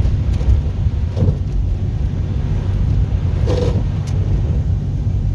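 Car driving on a snowy road, heard from inside the cabin: a steady low rumble of engine and tyre noise, with two brief faint sounds about a second and three and a half seconds in.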